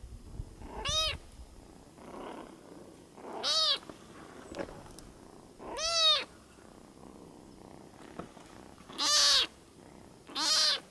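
A hungry ginger kitten meowing five times, each high call rising then falling in pitch, with short pauses between them.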